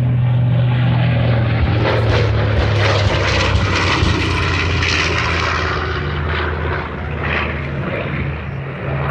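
Propeller-driven airplane flying past low and loud, its engine note dropping in pitch as it goes by, with the rush of its passage peaking mid-way.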